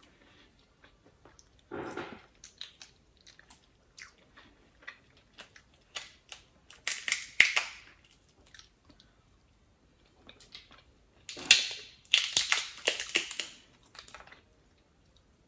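Boiled crawfish being peeled by hand: shells cracking and crackling in short clusters of clicks, loudest about seven seconds in and again from about eleven to fourteen seconds.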